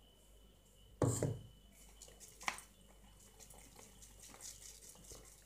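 Ground rice flour poured from a steel tumbler into a mesh sieve and sifted: a faint hiss and rustle of flour on the mesh, with a knock about a second in and a sharp click about halfway through.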